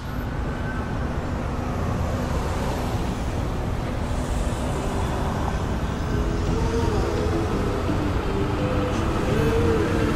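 Steady city traffic rumble, with some higher held tones coming and going from about halfway through.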